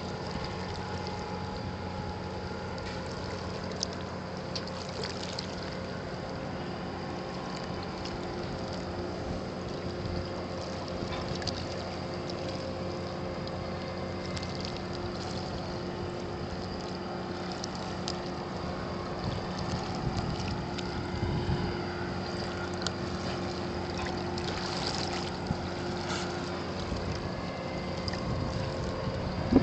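Steady low mechanical hum of boat engines running, holding a few fixed tones, over light wind and water noise, with a few faint clicks.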